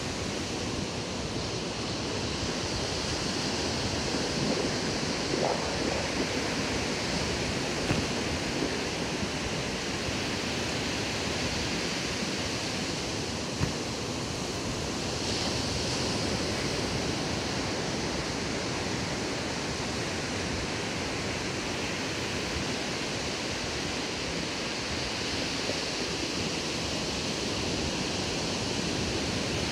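Steady rush of ocean surf breaking on a sandy beach, mixed with wind, with two brief knocks, the second about two-thirds of the way through the first half.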